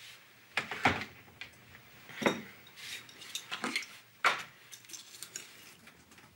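A small glass bottle and other small objects handled on a table: a handful of sharp, irregular clinks and knocks.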